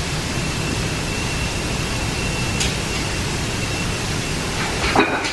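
Steady rushing of wind and churned sea water along a cruise ship's open deck as the ship moves, with one short sharp click about halfway through.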